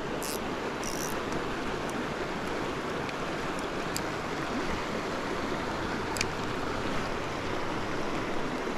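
Steady rush of a flowing river, with a few brief faint high hisses and ticks in the first second or so.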